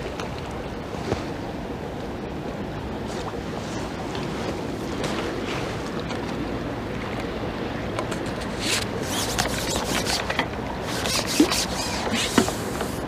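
Steady rushing noise of wind on the microphone and moving river water, with scattered clicks and rustles from about eight seconds in, including two sharp ticks near the end.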